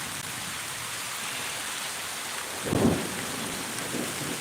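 Steady rain falling, with a short, loud low burst of thunder about three seconds in.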